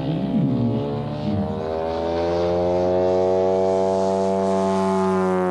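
Half-scale Sukhoi Su-26 model's 400cc petrol engine and propeller running at high power in flight. The note wavers up and down for the first second and a half, then holds strong and steady with a slow rise in pitch, and starts to fall in pitch and loudness at the very end as the plane passes.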